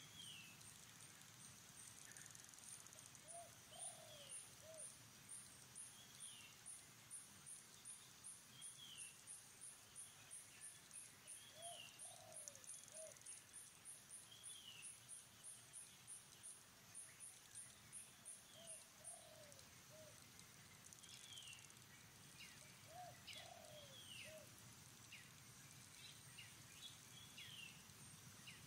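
Faint outdoor birdsong: short, high down-slurred calls every second or two; a low three-note cooing phrase heard four times; and a high pulsing trill of about three pulses a second that runs for about fifteen seconds from a few seconds in.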